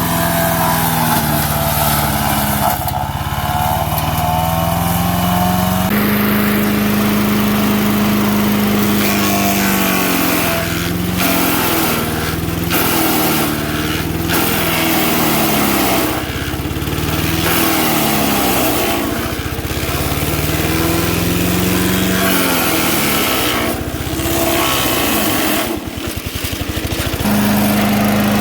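5 HP MTD wood chipper/shredder's small petrol engine running at full speed and bogging down again and again, its pitch sagging and climbing back as it takes the load of branches being chipped.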